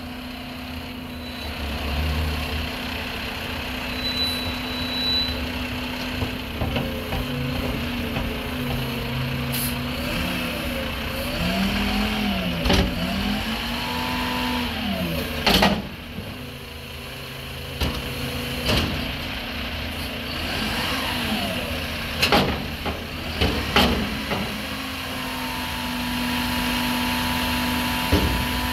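Mack MRU front-loader garbage truck with a Heil body, its engine running steadily and then revving up and down in repeated rising and falling sweeps as the hydraulics lift a recycling dumpster over the cab. About six sharp loud bangs sound in the second half as the container is knocked about at the top of the dump.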